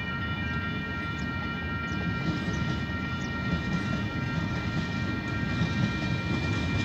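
Diesel-hauled KiwiRail freight train approaching: a low rumble that slowly grows louder. Several steady high tones sound over it and fade out about five seconds in.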